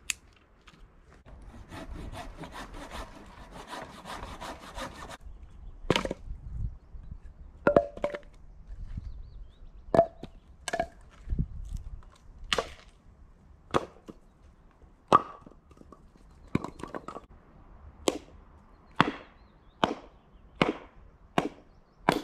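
A machete chopping wood: sharp single blows roughly once a second, splitting a stick stood on end on rock. Before the blows start there are a few seconds of dense rustling and scraping.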